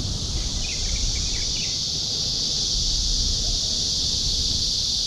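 Steady high-pitched drone of an insect chorus with a low rumble underneath, and a few short bird chirps about a second in.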